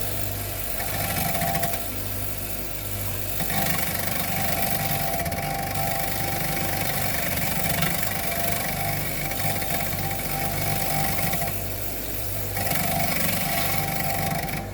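Clarke electric bench grinder running with a steady motor hum, while a metal piece is pressed against the wheel several times: a short touch about a second in, a long stretch through the middle and another near the end, each adding a grinding hiss and ringing tones.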